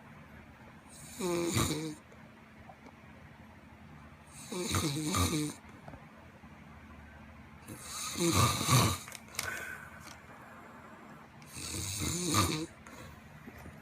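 An overweight person snoring heavily: four loud snores, each about a second long, coming roughly every three and a half seconds, with quiet in-between breaths.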